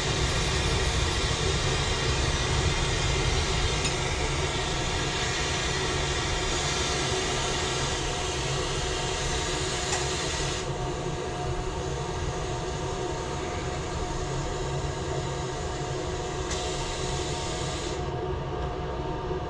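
Glassworking bench torch burning with a steady rushing roar and hiss, over a constant hum. The high hiss drops back about halfway through, comes back briefly, then drops again near the end.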